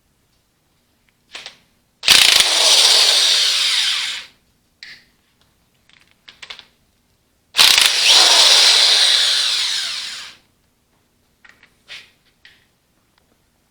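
A handheld power tool run in two bursts of about two and a half seconds each. Each starts suddenly at full level and fades out, with short metallic clicks and clanks between the bursts.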